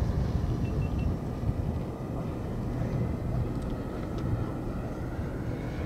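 Electric ducted fan of an FMS F-18 model jet flying at a distance: a steady, even rush of noise with a low rumble, easing off slightly about two seconds in.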